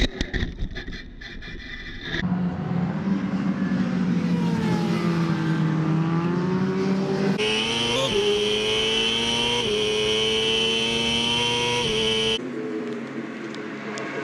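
A racing motorcycle crashing, with loud jumbled scraping and knocks as it goes down. Then onboard racing motorcycle engines run at high revs with a high whine, the pitch stepping twice as gears change. The sound drops and changes shortly before the end.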